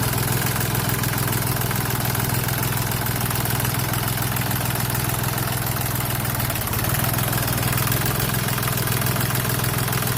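Tractor engine running steadily as the tractor drives slowly forward, a little louder about two-thirds of the way through.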